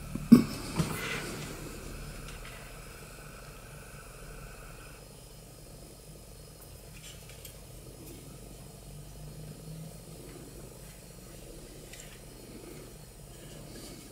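Bedini SSG self-oscillating cooling fan motor running with a steady low pulsing purr. Two sharp clicks come near the start, and a faint high steady tone stops suddenly about five seconds in.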